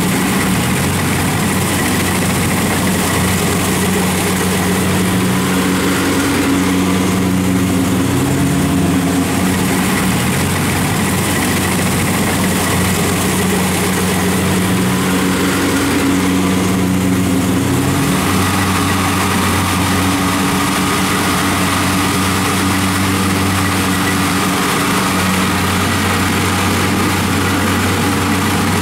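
Kubota rice combine harvester's diesel engine running steadily under load while it cuts and threshes rice, its pitch shifting slightly a few times.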